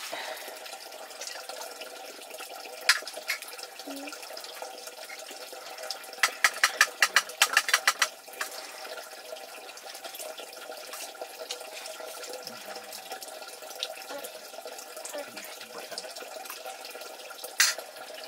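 Steady rush of running water. About six seconds in, a quick run of about a dozen sharp, evenly spaced knocks lasts two seconds, and single sharp knocks come once early and once near the end.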